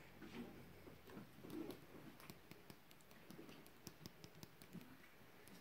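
Near silence, with faint rustling and scattered light ticks as a kitten plays on a fleece blanket.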